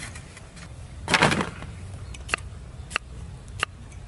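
Cleaver slicing cucumber on a wooden chopping board: a sharp knock on the board about every two-thirds of a second, starting about two seconds in. About a second in comes a short, louder scrape or rustle.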